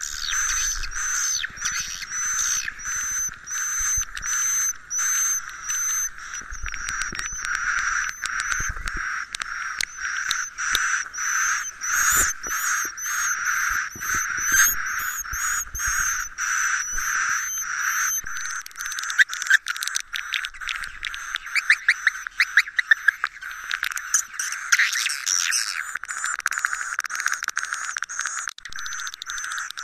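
Recorded swiftlet roosting call ('suara inap'), the lure played in swiftlet houses to make edible-nest swiftlets settle and roost: a constant twittering chatter of swiftlet chirps. It opens with a high chirp repeated about every 0.7 s and turns to dense, rapid clicking trills about two-thirds of the way through.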